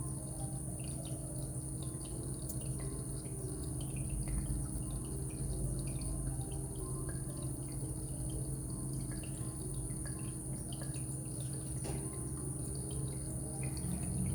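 Water drops in an anti-gravity water-drop humidifier falling and dripping, many small irregular plinks, over a steady low hum and a faint steady high whine.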